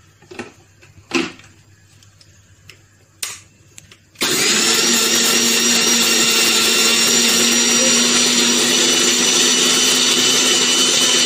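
Electric mixer grinder starts about four seconds in and runs steadily with a high whine, grinding soaked sesame seeds into tahini paste. A few light knocks come before it as the jar is handled.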